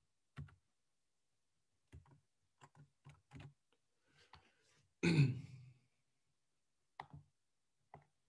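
Quiet, scattered computer keyboard keystrokes and mouse clicks, with a cluster of keystrokes a couple of seconds in and single clicks near the end. About five seconds in comes a short throat clearing, the loudest sound.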